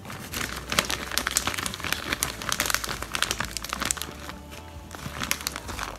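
A plastic bag crinkling and rustling for several seconds, dense and crackly, as a hand digs into it for more shredded mozzarella.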